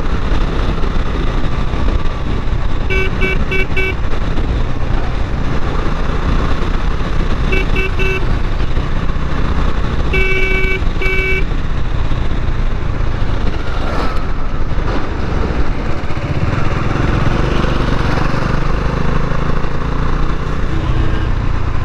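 Bajaj Dominar 400 motorcycle engine running steadily on the move, with a vehicle horn tooting in quick short beeps in three clusters: a few seconds in, around eight seconds, and again around ten to eleven seconds.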